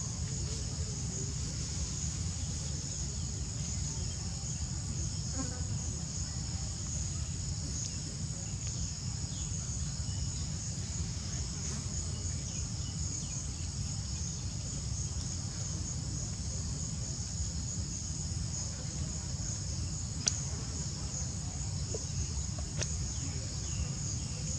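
Steady, high-pitched chorus of insects singing without a break, over a constant low rumble.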